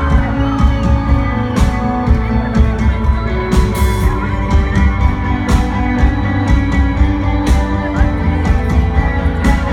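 Live rock band playing at full concert volume: heavy drums and bass under electric guitar, with a cymbal crash about every two seconds.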